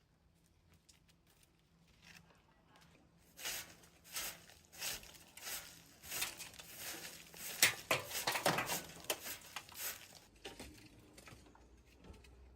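A run of irregular rustling, crinkling noises, roughly one or two a second, starting about three seconds in and dying away near the end.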